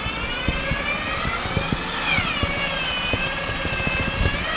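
Electric winch whining under load on a taut cable, its pitch wavering and rising briefly about two seconds in, over a run of short low knocks and crunches.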